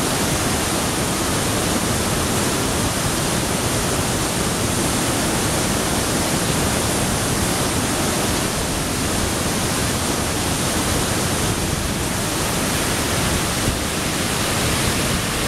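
Water pouring over a dam spillway and cascading down rocky falls: a steady, full rushing noise with no let-up.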